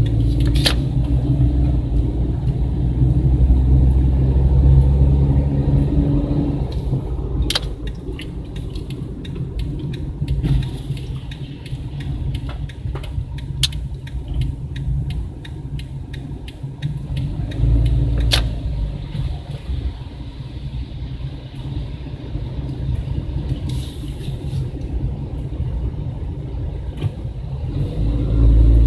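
Typhoon wind gusting hard against the microphone: a heavy, surging low rumble that swells and eases, strongest in the first few seconds, around the middle and again near the end. A few sharp clicks or knocks sound through it.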